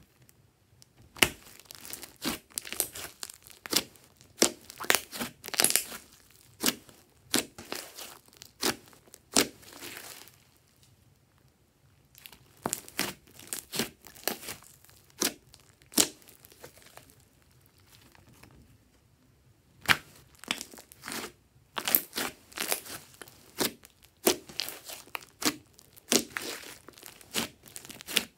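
Thick slime kneaded and squeezed by hand, giving clusters of sharp pops and crackles as it is pressed and pulled apart. Twice it falls quiet for a couple of seconds before the popping starts again.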